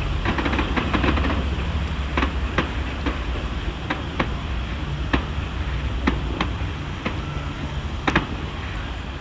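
Fireworks going off, with about a dozen sharp bangs and cracks at irregular intervals over a steady low rumble. The loudest is a close pair of bangs about eight seconds in.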